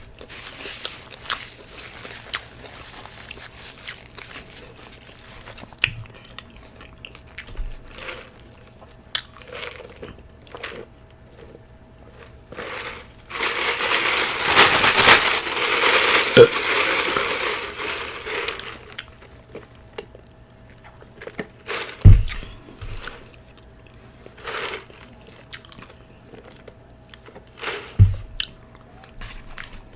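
Close-miked mukbang eating: a person chewing fast food with wet lip smacks and mouth clicks throughout. About halfway through comes a loud crunching, rustling stretch of about six seconds. Two short low thumps follow near the end.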